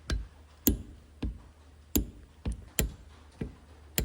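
Hand wrench clicking as turbocharger bolts are tightened toward 18 foot-pounds: a slow series of sharp, separate clicks, about one every half second.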